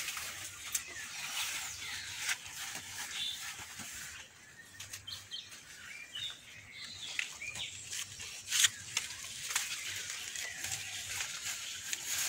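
Maize leaves and stalks rustling and crackling irregularly as someone brushes through a standing cornfield. A few faint bird chirps come through in the middle.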